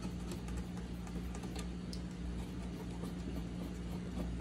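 Faint scattered clicks and ticks of thumb screws being turned out of a cabinet's back cover, over a steady low hum.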